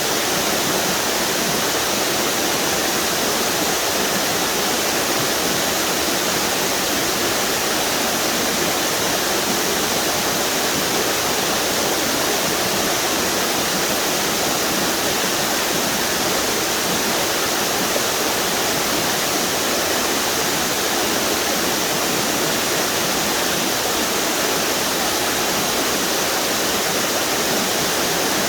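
A string of waterfalls on a river: water pouring over the drops in a steady, even rush that does not change.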